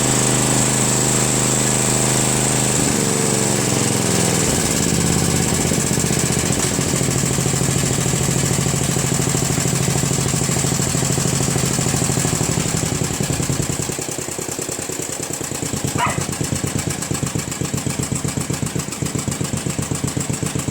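Murray Select lawn tractor's small engine running steadily, then throttling down about 13 seconds in to a slower idle with distinct, regular firing pulses. A brief squeak is heard about 16 seconds in.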